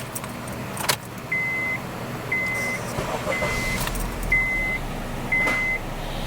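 Honda Civic's dashboard warning chime: a steady high beep, each about half a second long, repeating about once a second, five or six times. A sharp click comes just before the beeps start.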